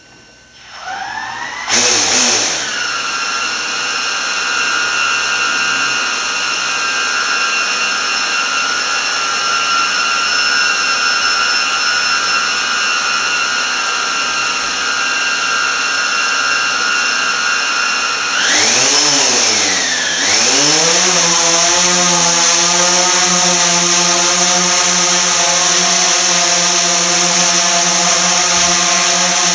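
DJI Phantom 3 Professional quadcopter's four motors and propellers starting up about a second in, then spinning at a steady idle whine on the ground. About 18 seconds in the pitch swings up and back down as the throttle is raised, and the drone lifts off and hovers with a steady, louder buzz made of several blended tones.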